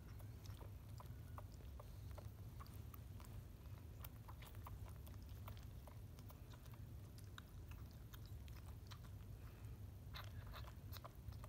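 Koala joey suckling milk from a bottle's rubber teat: faint, irregular small clicks and smacks of sucking, over a low steady hum.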